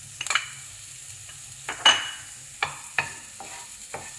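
Chopped onion frying in hot olive oil in a nonstick frying pan while a wooden spoon stirs it, knocking against the pan several times; the loudest knock comes about two seconds in and rings briefly.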